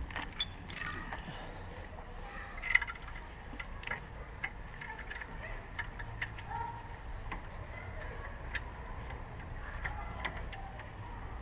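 Socket ratchet clicking in short, irregular runs on bolts in a car's engine bay, with a sharper metallic knock about two and a half seconds in.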